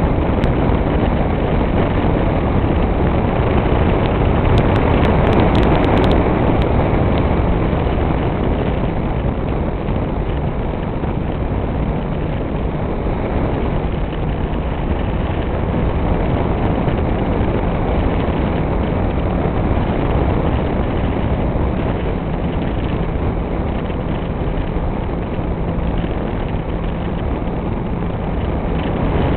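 Motorcycle engine running steadily at cruising revs under way, mixed with heavy wind rush on the bike-mounted camera's microphone; it swells briefly a few seconds in.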